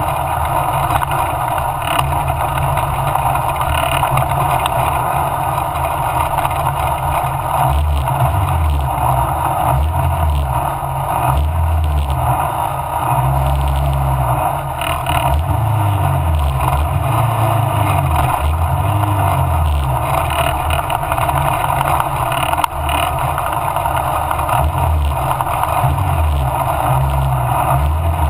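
Mallock Mk8B racing car's engine running hard at speed, loud and steady, with rumbling low pulses that come and go.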